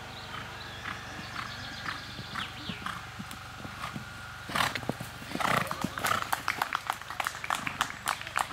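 Horse cantering on a sand arena, its hoofbeats faint at first and turning loud and quick from about halfway through as it lands from a jump and comes close, at roughly three beats a second.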